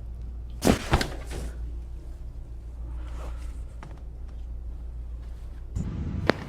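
Two sharp cracks close together about a second in, then a few fainter clicks, over a steady low hum: neck joints popping during a chiropractic adjustment.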